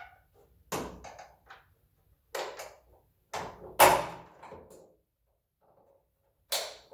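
Hood gas shock being fitted to its hinge bracket: a handful of separate sharp knocks and clunks, the loudest a little under four seconds in, as the shock's end clip is worked onto the bracket and goes in.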